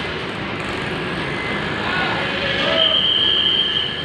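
Coach engine running as a large bus moves slowly, with people's voices in the background. A steady, high-pitched whistle-like tone sounds for about a second near the end.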